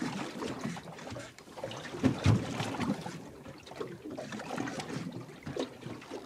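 Water slapping and sloshing against the hull of a small boat, uneven, with a heavier slap about two seconds in.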